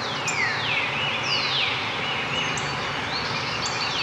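Forest ambience: a bird repeating a falling whistle over and over, with other birds' short high chirps, over a steady background hiss.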